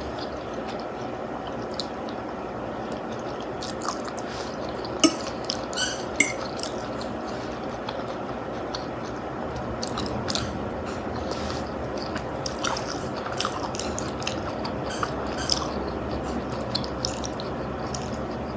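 Close-up eating sounds: chewing of spaghetti and meatballs over a steady background hiss. Scattered sharp clicks and knocks are heard, the loudest about five and six seconds in, which the host puts down to her dog playing with its toy.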